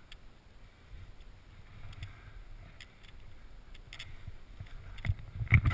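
Wind buffeting the camera microphone, a low rumble with scattered faint clicks, growing into louder irregular knocks and rustling near the end.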